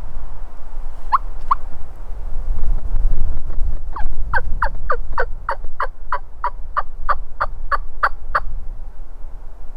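Wild turkey yelps: two single notes about a second in, then a steady run of about fifteen yelps at roughly three a second, with a low wind rumble underneath.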